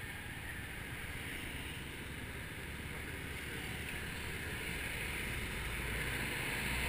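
Motorbike ride heard from the rider's mounted camera: a low engine run and wind rushing over the microphone, getting louder toward the end.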